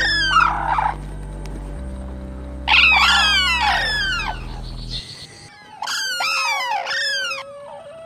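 Sarus cranes calling: three bursts of loud trumpeting, each a quick run of falling, ringing notes. A low steady drone runs under the first two bursts.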